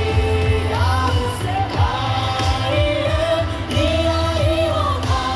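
Upbeat yosakoi dance music with a singing voice and brass over a heavy, steady drum beat.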